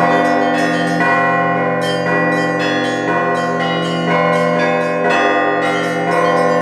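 Russian Orthodox church bells rung in a continuous peal: rapid strikes of the small bells over the long ringing tones of the larger bells, with heavier strokes coming every second or so.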